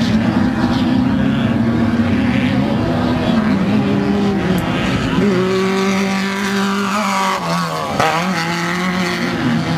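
Off-road racing vehicle engines running hard, a steady drone whose pitch dips briefly, with a sharp click about eight seconds in before the revs climb again.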